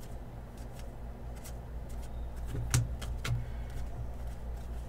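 Trading cards being handled on a table: a few soft clicks and taps as cards and packs are moved and set down, the sharpest a little under three seconds in, over a steady low hum.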